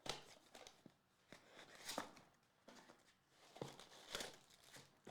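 Soft, irregular rustles and small clicks of a trading-card pack and its cards being handled and opened.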